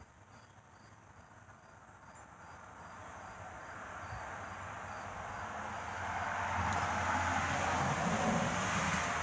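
A vehicle approaching, its rumble and rushing noise growing steadily louder toward the end. Crickets chirp over it, about three chirps a second.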